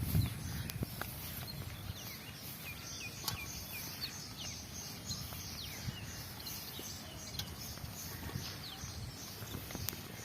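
A chorus of small animals chirping in a flooded field: many short, high, downward-sliding chirps repeating over a steady hiss, with a few faint clicks.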